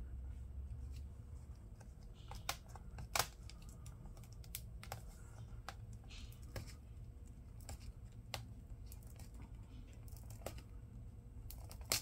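Faint, scattered clicks and scratches of fingernails picking at stubborn adhesive tape over a laptop's LCD display cable, a sharp tick every second or two, over a low steady hum.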